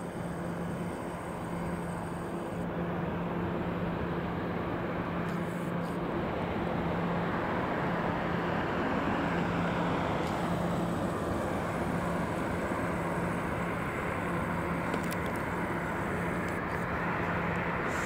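Road traffic noise: a steady wash of vehicle sound over a constant low hum, growing a little louder about a third of the way in.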